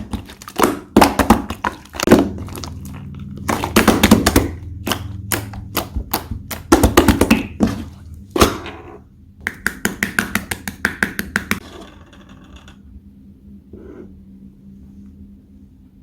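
Slime being pressed, poked and stretched by hand, giving a rapid series of sharp clicks and pops; the clicking stops about twelve seconds in.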